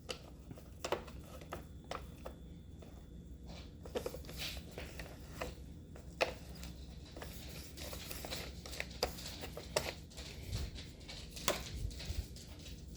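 Light clicks, taps and rubbing of the Roomba robot vacuum's plastic parts being handled and worked on, scattered irregularly.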